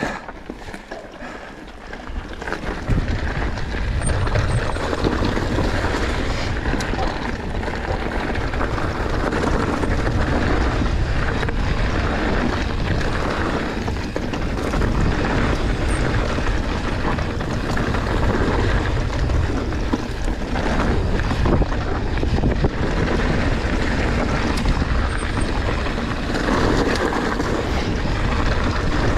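Wind buffeting the microphone over tyre noise as an enduro mountain bike rides a dirt trail at speed, growing much louder about two and a half seconds in and then holding steady.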